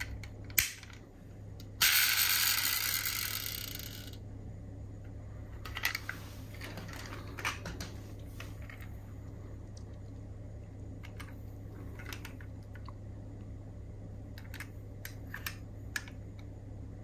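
Diecast toy car handled: a sharp click, then a loud rush that starts suddenly and fades over about two seconds, followed by scattered small clicks of its metal and plastic parts.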